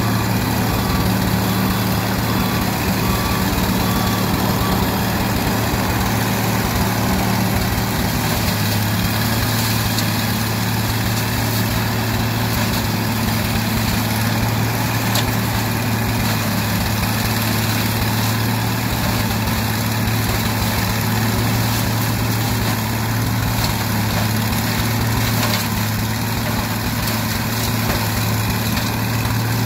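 Ford 300 inline-six engine of a Tarco Big-T-Vac leaf vacuum running steadily at work, with the rush of its fan drawing leaves in through the intake hose. A vehicle's reversing beeper beeps evenly for the first few seconds.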